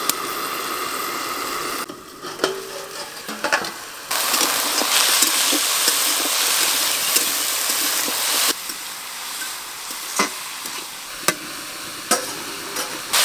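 Radish and radish greens sizzling in a metal karahi while a metal spatula stirs them. The sizzle drops away twice, leaving sharp clinks of metal on the pan.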